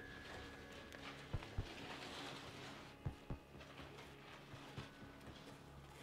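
Slow heartbeat sound effect: pairs of soft low thumps, a quarter second apart, coming about every two seconds over a faint low drone.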